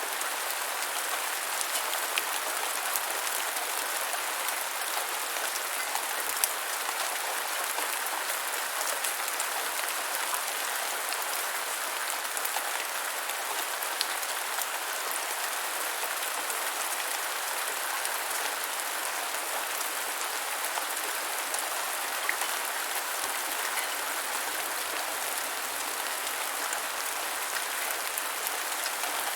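Steady rain falling on the ground, a dense even patter with the odd sharper drop tick standing out.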